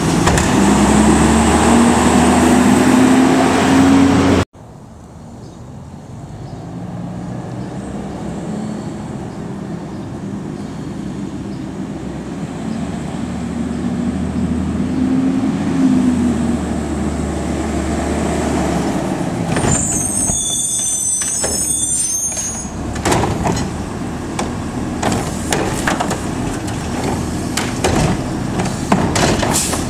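Autocar ACX garbage truck's diesel engine revving, with a rising hydraulic whine as the Curotto-Can arm lifts and dumps a cart. After a sudden cut the truck is farther off and grows louder as it comes closer, with a second rising whine near the middle, a brief high squeal about two-thirds through, and clanks and bangs from the cart and arm near the end.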